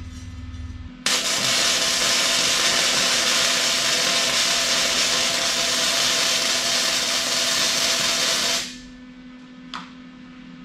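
Wire-feed (MIG) welder running 0.035 wire, its arc burning steadily on steel. The arc strikes abruptly about a second in, runs for about seven and a half seconds, then cuts off; a single short click follows near the end.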